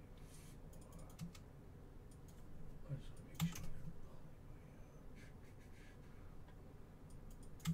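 Faint computer keyboard typing and clicking: scattered, irregular keystrokes, with a louder cluster of clicks about three and a half seconds in.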